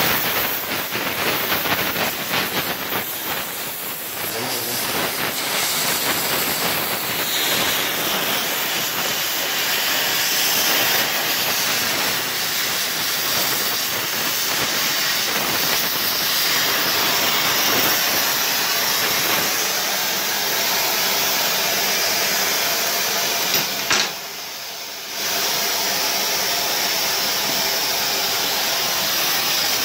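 Gas welding torch flame hissing steadily as filler rod is melted onto a small steel part clamped in a vise. The hiss is uneven and crackly for the first few seconds and briefly drops away once, about three-quarters of the way through.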